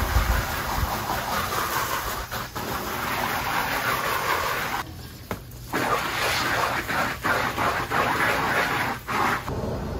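Garden hose spray nozzle jetting water onto a plastic tarp, a steady spattering hiss. It stops for about a second midway, comes back in uneven spurts, and stops near the end.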